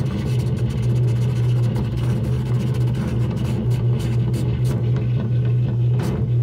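Painting on a surface picked up and amplified: a steady low electrical hum under a noisy rasp, with a run of short, sharp brush strokes from about halfway in.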